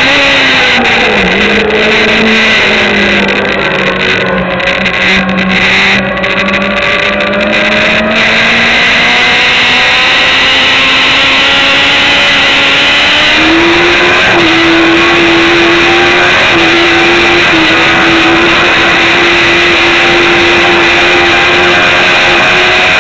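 Sport motorcycle's engine at race pace, heard on board over heavy wind rush: the revs drop over the first couple of seconds as the bike slows for a corner, stay low and climb slowly through the turn, then rise quickly a little past halfway and hold high.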